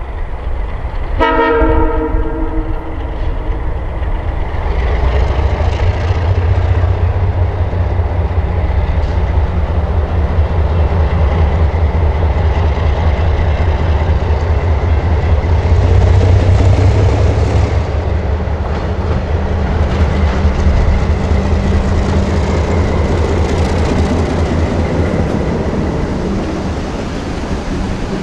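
Delaware & Hudson 4118 diesel locomotive: a short horn blast about a second in, then the diesel engine running hard under power, building to a peak a little past the middle and easing off near the end.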